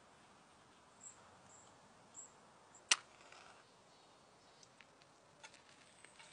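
A paper match struck once about three seconds in, a single sharp scratch that flares with a brief hiss, followed by faint crackling ticks of a paper napkin burning on an oil-soaked tuna can. A few short high chirps come before the strike.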